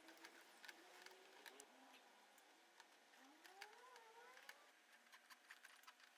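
Near silence: faint room tone with scattered faint clicks and a faint rising, wavering squeak about three seconds in.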